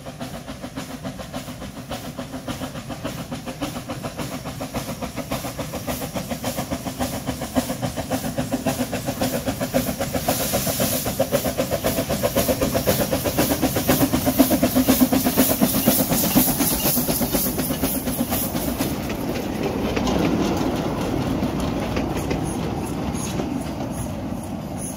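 1916 Decauville narrow-gauge steam locomotive No. 1652 running past with steady, rhythmic exhaust beats that grow louder as it approaches, with a hiss of steam escaping at the cylinders from about ten seconds in. After the engine has gone by, its wooden coaches roll past clattering over the rail joints.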